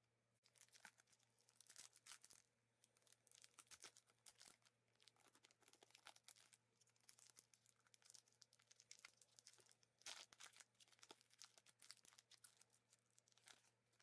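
Quiet, irregular bursts of crackling as a trading card pack's wrapper is torn open and crinkled by hand, loudest about two seconds in and again about ten seconds in.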